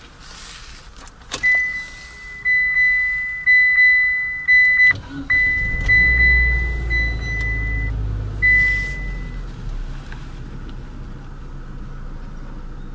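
A dashboard warning chime in a 2015 Mitsubishi ASX dings repeatedly at a high pitch, each ding fading into the next. About five seconds in, the car's 1.8-litre MIVEC four-cylinder starts with a short crank, flares up for a few seconds, then settles to a steady idle.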